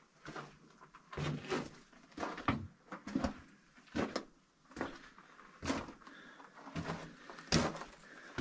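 Footsteps on the loose rock and gravel floor of a mine tunnel: a series of short scuffs and crunches, irregularly spaced at about one to two a second.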